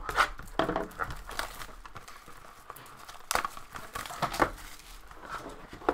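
Cellophane shrink wrap being slit with a box cutter and peeled off a sealed box of trading cards, crinkling in irregular sharp crackles.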